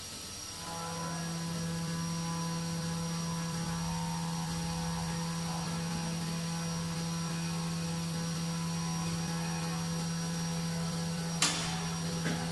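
Steady electric hum from a CNC vertical machining center, starting about a second in and holding one even pitch. There is a sharp metallic click near the end and a smaller one just after.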